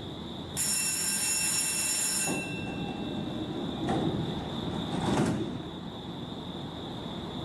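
JR East E233-series commuter train at a station platform as its doors close: a high steady signal tone for under two seconds, then two louder thumps about a second apart.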